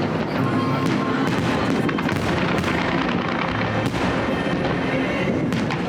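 Aerial fireworks bursting, with sharp bangs and crackle, under background music.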